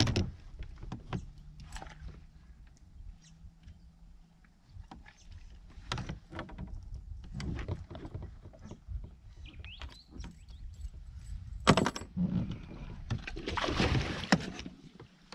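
Irregular knocks, clicks and bumps of fish and gear being handled aboard a fishing kayak, with a few sharp knocks and a longer, louder rushing noise near the end.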